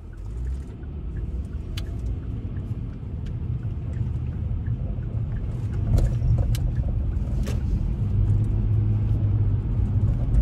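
Car cabin noise as the car pulls away and gathers speed on a wet road: a low rumble of engine and tyres that grows steadily louder, with a few light ticks.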